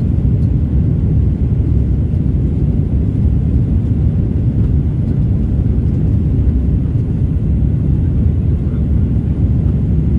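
Steady low rumble of an Airbus A330-300 airliner's jet engines.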